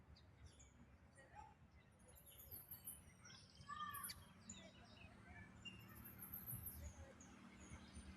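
Several birds chirping and calling faintly, many short high chirps overlapping, with a louder call a little past the middle. A low rumble lies underneath.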